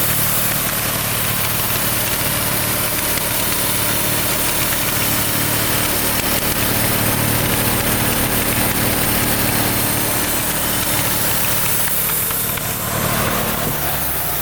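Engine of a Wood-Mizer LT40 portable band sawmill running steadily, with a slight change in its note about twelve seconds in.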